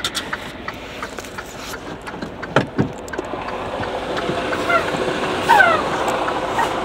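Knocks and clicks of someone climbing into a truck cab, with the truck's engine idling underneath and growing steadier and louder from about four seconds in.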